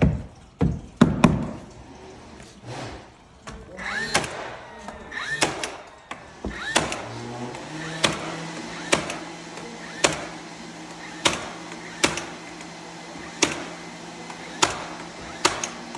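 Repeated sharp knocks on wood, about one a second through the second half, typical of nosing molding being tapped or nailed into place during hardwood flooring work.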